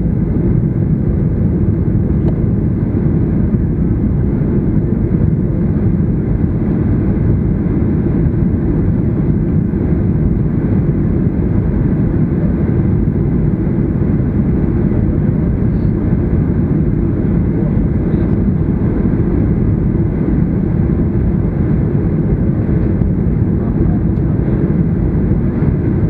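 Steady low rumble inside the cabin of a Boeing 737-800 in descent: the CFM56-7B engines and the airflow over the fuselage, heard from a window seat.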